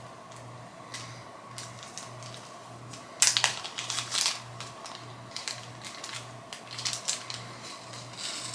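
Packaging being unwrapped by hand: scattered rustles and crinkles, with a louder burst of crinkling about three seconds in and another flurry around seven seconds.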